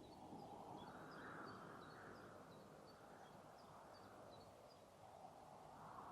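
Faint forest birdsong: a quick scatter of short, high chirps over a soft rushing hiss that swells and fades.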